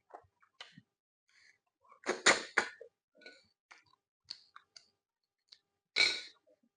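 Close-up sounds of a person eating akpu and fish: chewing and lip smacks with many small scattered clicks, and two louder, longer mouth sounds about two seconds in and near the end.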